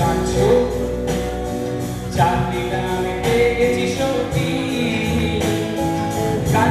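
Live rock band playing a song, with guitars, bass and drums behind a singer.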